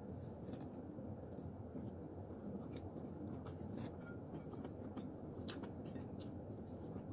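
Quiet sounds of eating by hand: faint, irregular little clicks and smacks as fingers pick at fried fish and rice and she chews, over a low steady room hum.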